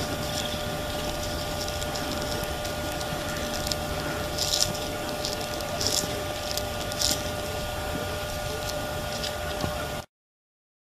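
Steady hiss and faint hum on a camcorder's microphone, with several sharp distant cracks around the middle, about four and a half, six and seven seconds in: hunt riders whipping their saddles. The sound cuts out suddenly near the end.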